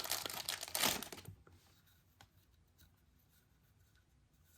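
Packaging rustling and crinkling as items are handled for about the first second, then quiet with a few faint clicks.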